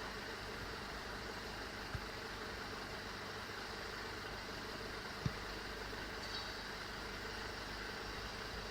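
Mercedes-Benz W204 C200 engine idling on a cold start, an idle the owner calls rough. There are two short low thumps, about two and five seconds in.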